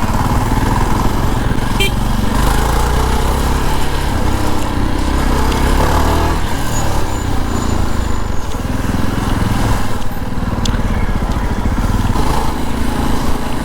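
Motorcycle engine running steadily while being ridden, under a steady rush of wind and road noise.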